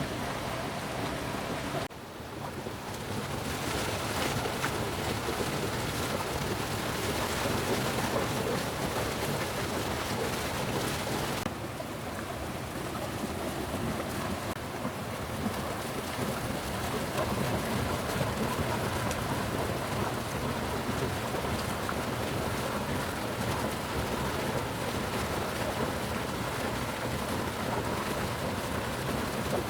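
Steady rain falling, an even hiss with no distinct drops standing out; the sound changes abruptly about two seconds in and again partway through.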